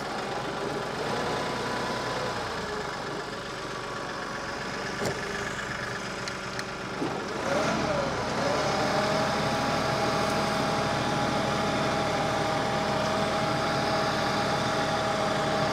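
Kioti compact tractor's diesel engine running steadily while it carries a heavy grapple load of logs. About eight seconds in the pitch dips and comes back up, then settles into a steady, slightly higher hum with a clear whine.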